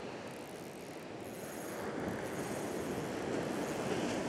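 Surf breaking and washing up a sandy beach, a steady rush of water that grows slightly louder toward the end.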